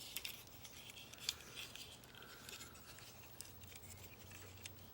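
Faint, scattered clicks and rubbing of the hard plastic parts of a Transformers Classics Grimlock-mould figure being folded and pegged into place, over a low steady hum.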